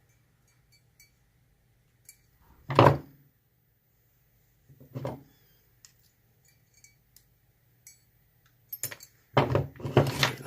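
Small metal clicks and clinks of hand tools and parts on a brass euro lock cylinder being taken apart, with two louder handling knocks about three and five seconds in and louder handling noise near the end.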